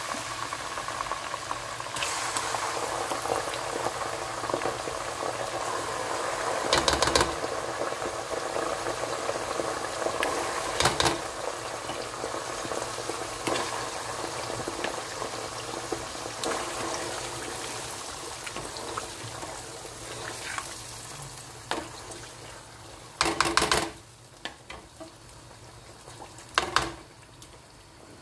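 Hot oil and onions sizzling in a pot as tomato sauce is ladled in, the sizzle dying down toward the end. Several short clatters of the ladle against the pot and bowl stand out above it.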